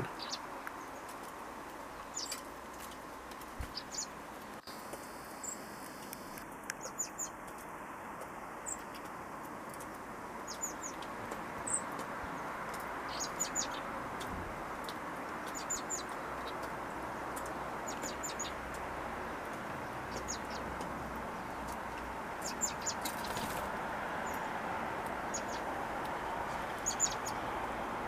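Garden birds chirping: short, high calls scattered every second or two, over a steady background noise.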